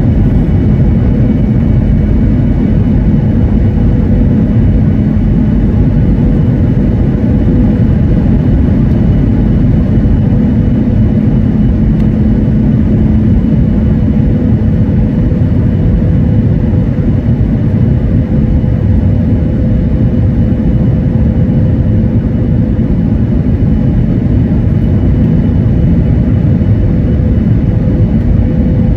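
Airliner's jet engines and rushing air heard inside the cabin during descent: a loud, steady drone with a few faint held tones in it.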